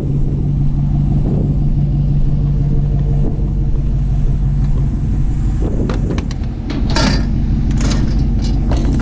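Vehicle engine running with a steady low hum. A few sharp clicks and a short clatter come about six to seven seconds in.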